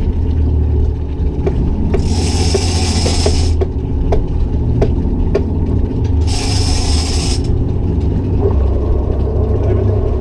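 Ratcheting clicks from a big-game trolling reel as the rod is pumped and line is wound in against a hooked albacore tuna, over the boat engine's steady low rumble. A rushing hiss swells and fades about every four seconds.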